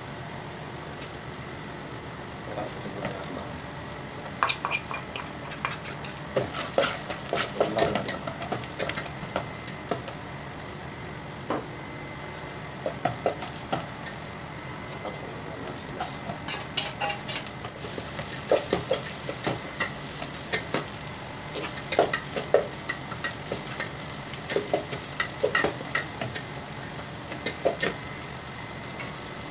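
Metal spatula scraping and clacking against an aluminium pot while ginger strips, and later chopped onion, sizzle in the pan. The stirring comes in irregular clatters, and the sizzle grows stronger a little past halfway.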